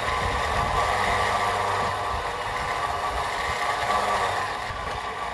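Electric winch motor running steadily as it reels in synthetic winch rope, worked from a handheld remote.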